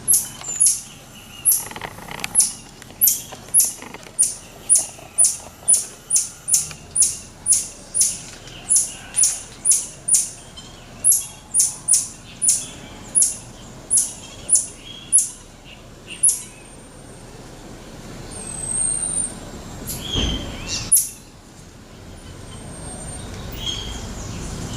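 Marmosets calling: a rapid run of short, very high-pitched chirps, about two a second, then a few drawn-out thin whistles. A dull bump about twenty seconds in.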